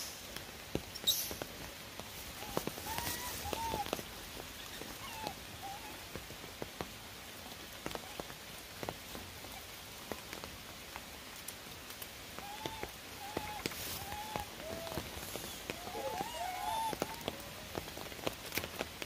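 Rain pattering and dripping on wet stone paving, with scattered sharp drip ticks. Short high squeaky calls come in two bursts, one a few seconds in and one past the middle.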